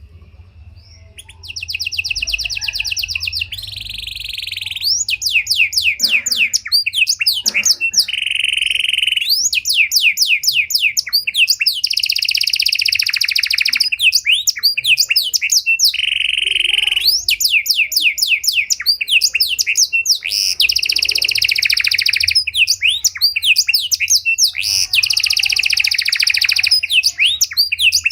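Domestic canary singing a long, varied song, starting about a second in. The song is made of fast rattling trills and rapid repeated notes, broken by a few short held flat notes.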